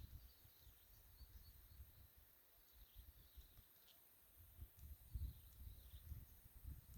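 Near silence: faint outdoor ambience with a few high chirps and soft low rumbling, the rumbling growing in the last couple of seconds.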